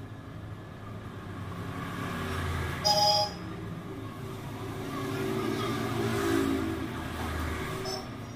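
Road traffic passing, a low engine rumble that swells and fades twice. About three seconds in, a brief high-pitched beep, the loudest sound here.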